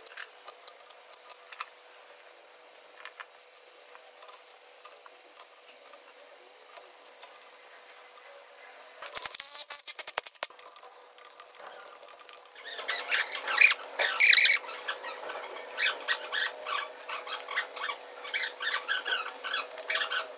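Metal engine parts clicking and clinking as the pushrods and rocker arms are fitted on the cylinder heads of a Mercedes OM 460 diesel. A handheld power tool working on the rocker arms makes a short dense rattle about nine seconds in, and a longer one from about twelve seconds on.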